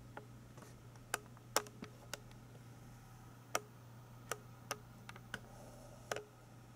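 Hands handling a boxed collectible figure: scattered sharp clicks and taps on the packaging, about a dozen at irregular intervals, over a faint steady low hum.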